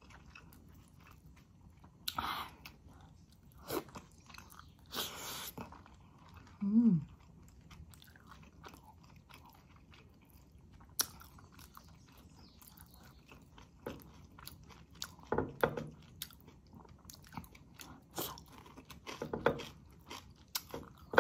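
Close-up eating sounds: a person chewing soft stewed eggplant and chicken in coconut milk, with wet smacks and clicks of the mouth at uneven intervals. There is a short hummed 'mm' about seven seconds in.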